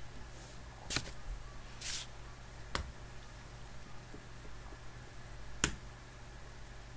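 Room tone with a steady low hum, broken by three sharp small clicks about a second in, near the middle and near the end, the last the loudest, and a short rustle about two seconds in.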